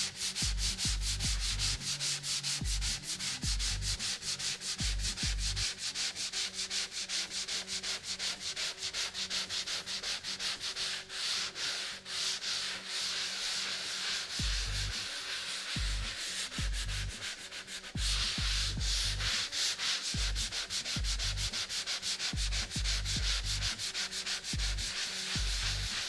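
A hand sanding sponge scraping back and forth over dried setting-type (20-minute) joint compound on a drywall patch, in rapid, even, gritty strokes.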